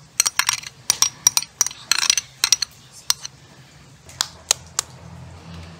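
A kitchen utensil clinking and tapping against a mixing bowl while butter is worked into it: a quick run of sharp clinks over the first three seconds, then three spaced clinks after about four seconds.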